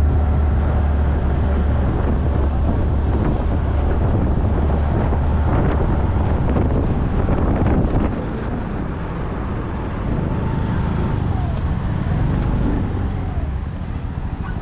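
Yamaha motor scooter being ridden along a street, its engine running under heavy wind rumble on the microphone; the low rumble eases after about eight seconds as the scooter slows.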